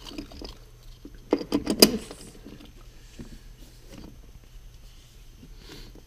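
A seatbelt retractor and its mounting bolt being handled and fitted against the seat-base bracket: a quick run of sharp clicks and knocks about a second and a half in, then faint light handling noises.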